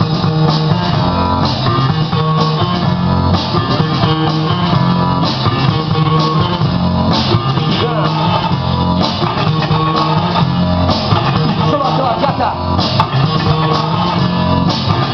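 Loud rock music with guitar and a drum kit, playing steadily with a regular beat.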